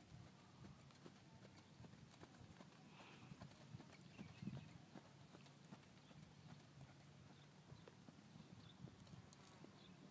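Faint, muffled hoofbeats of a horse moving over sand arena footing.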